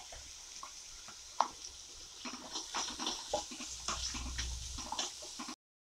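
A spatula stirring and scraping grated onion, ginger and garlic around a kadai of hot oil over a faint sizzle. A sharp knock about a second and a half in, then a run of irregular scraping strokes from about two seconds in, cut off abruptly just before the end.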